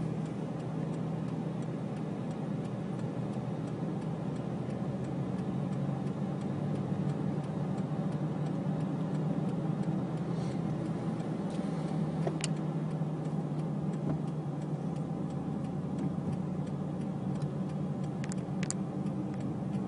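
Steady drone of a car's engine and road noise, heard from inside the cabin, with a few faint clicks about twelve seconds in and again near the end.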